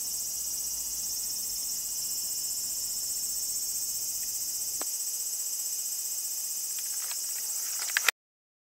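Insects chirring in a steady, shrill, high-pitched chorus. A single click sounds about five seconds in, and a couple of knocks from camera handling come just before the sound cuts off abruptly near the end.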